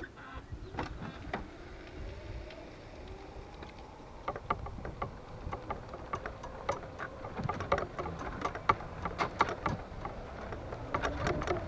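Golf cart driving, with a faint whine that rises and falls and golf clubs rattling in the bag in an irregular clatter of clicks that grows denser and louder from about a third of the way in.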